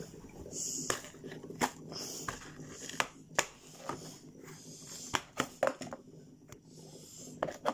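Scattered sharp taps and knocks with brief soft rustling, from a shark hand puppet being moved about and bumping objects on a wooden tabletop.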